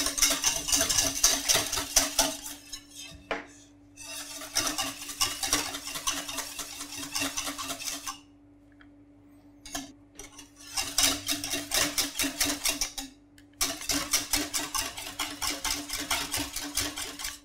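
Wire whisk beating a milk-and-cream ice-cream base in a stainless steel saucepan, a fast scraping clatter of strokes against the pan in four bouts with short pauses between, as the base is heated toward 85 °C to pasteurise it. A steady low hum runs underneath.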